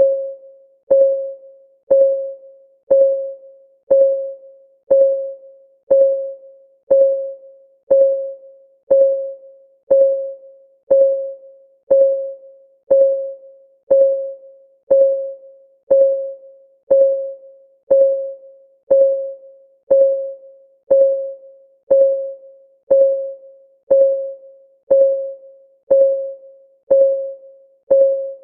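Countdown timer's clock ticking: one short pitched tick each second, evenly spaced, each dying away quickly.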